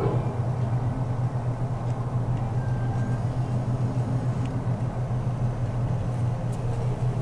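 Steady low mechanical hum with a rumble beneath it, even in level throughout.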